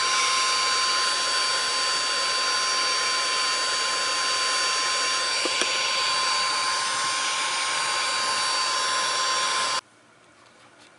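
Electric heat gun blowing steadily, a fan rush with a high steady whine, preheating plastic before welding; it stops abruptly near the end.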